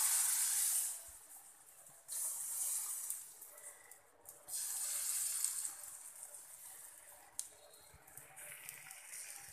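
Thin onion rava dosa batter sizzling as it is poured in splashes onto a hot non-stick pan: three spells of loud hissing about two seconds apart, then fainter sizzling.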